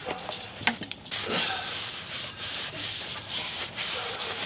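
Oil-soaked paper towel rubbed in repeated strokes over a freshly carved pine spoon, oiling the finished wood, after a few light knocks near the start.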